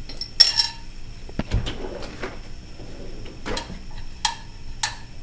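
Clinks of a cap against the neck of a glass bottle as it is worked on by hand, several sharp ringing clicks with a dull knock about a second and a half in. The cap is hard to get back on.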